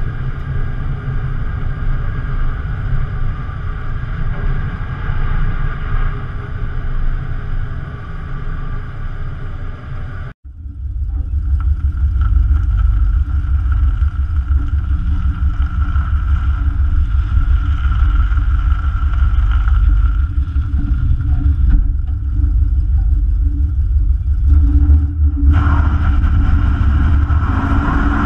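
1968 Pontiac LeMans driving, its engine running under steady road noise. After a sudden cut about ten seconds in, the sound is heard close to the front wheel and a deep rumble dominates. Near the end the engine pitch rises as the car accelerates.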